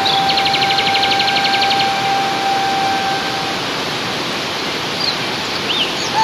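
Rushing water of Courtallam Main Falls and the rocky stream below it: a steady, even noise. A steady held tone sounds over it for the first three and a half seconds, and a rapid high trill of about a dozen ticks a second runs for about a second and a half near the start.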